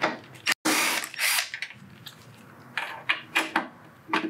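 Cordless drill/driver running in two short bursts as it backs out the 3/16-inch Allen bolts holding a motorcycle radio, followed by several short clicks of the tool and bolts being handled.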